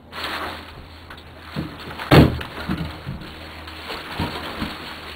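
A series of knocks and thumps over a steady hiss, the loudest a single heavy thump about two seconds in.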